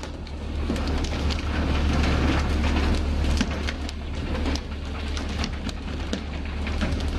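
Fishing boat's engine running low and steady under a hiss of water spray, with many short sharp slaps and knocks as pole-caught tuna land and flap on the deck.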